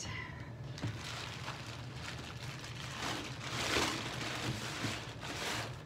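Hands pressing and rubbing stacked slabs of white and dark clay together on a work table: soft rustling scrapes, with a light knock about a second in and louder rubbing toward the middle and end.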